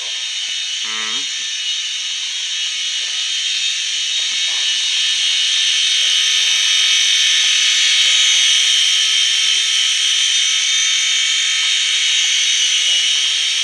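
Graupner Fun Chinook model helicopter's small electric motors and tandem rotors whining steadily in flight, growing louder over the first half.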